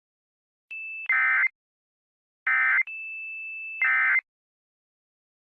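Emergency Alert System end-of-message data tones: three short buzzy bursts about a second and a half apart, signalling that the alert has ended. A fainter steady high tone sounds just before the first burst and again between the second and third.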